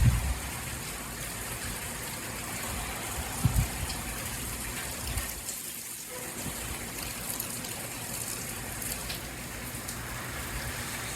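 Steady rain falling in a tropical storm, an even hiss of water, with brief low buffets of wind on the microphone at the start and again about three and a half seconds in.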